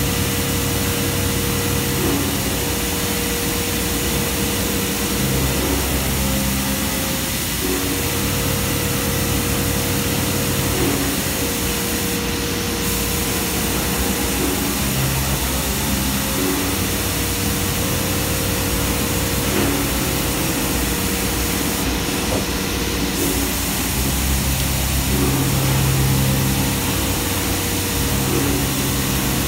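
Mori Seiki NV5000 vertical machining center running a drilling cycle: the spindle turns and coolant sprays as holes are drilled in bent sheet-metal cable bands. A steady hiss with a hum, and a tone that drops out and comes back every few seconds as the machine moves between holes.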